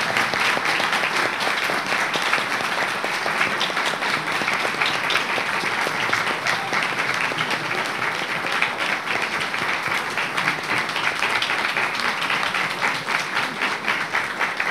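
Audience applauding steadily; near the end the clapping thins out into more separate claps.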